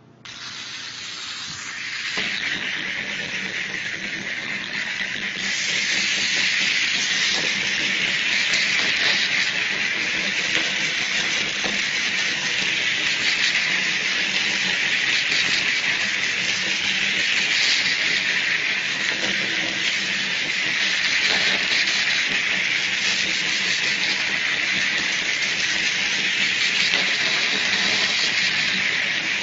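Small line-following toy robots running on a paper track, their tiny gear motors giving a steady, high whirring hiss. It starts suddenly and steps up louder twice in the first six seconds, then holds steady.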